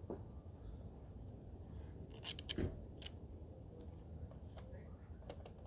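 Faint clicks and rattles of table saw parts being handled, a cluster of them about two seconds in and a few more near the end, over a low steady rumble.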